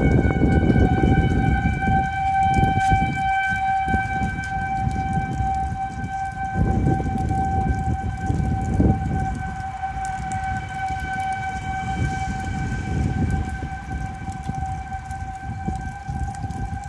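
Outdoor tornado warning siren sounding one steady held tone, growing slightly fainter toward the end, over an uneven low rumble.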